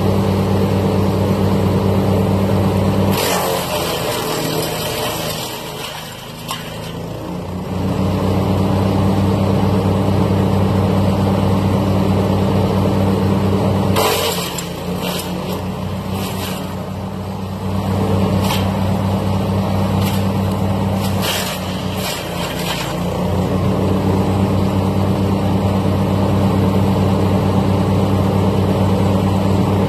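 Yardmax wood chipper's gas engine running steadily. Three times, about three seconds in, about halfway and about two-thirds through, it labours and drops in pitch as pine branches are fed in and shredded, with a crackling rush of wood being chipped.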